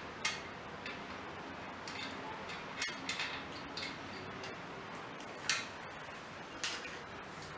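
Irregular metallic clicks and taps of steel lift-jack parts being handled while the hydraulic ram is fitted to the frame, with two sharper clinks in the second half.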